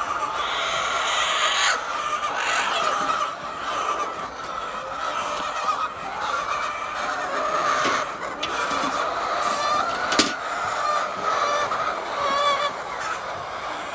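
Many laying hens clucking and calling over one another in a continuous din, with one sharp knock about ten seconds in.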